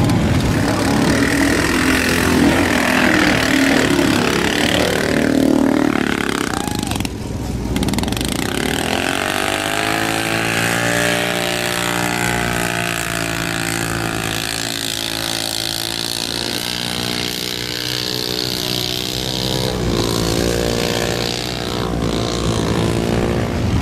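Off-road vehicles' engines running in a mud bog. From about nine seconds in, one ATV engine's steady drone dominates; its pitch rises a little as it comes in and shifts again about twenty seconds in.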